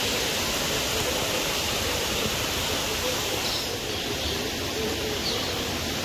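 Steady rush of a waterfall, with a couple of faint high bird chirps over it midway and near the end.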